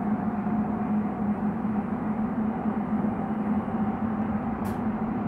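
Toronto Rocket subway train running after pulling out of the station, heard from inside the car: a steady rumble with a low motor hum and a fainter higher tone that rises slightly in pitch.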